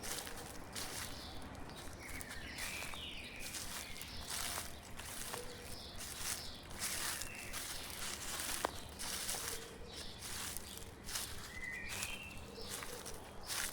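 Footsteps crunching through dry fallen leaves at a steady walking pace, with a few short bird chirps now and then in the background.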